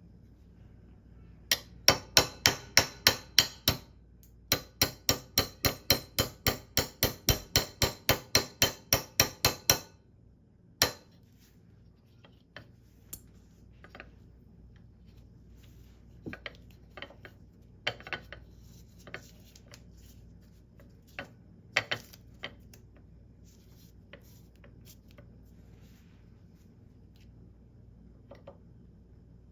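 Small hammer striking a pin punch to drive the roll pin into an AR-15 lower's bolt catch: a fast, even run of sharp metallic taps, about four a second, with a short break after the first couple of seconds. After that come a few scattered, quieter taps and clicks.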